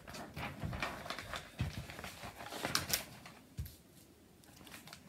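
A paper notebook being handled and a page turned: paper rustling with light clicks, mostly in the first three seconds, and a couple of soft knocks.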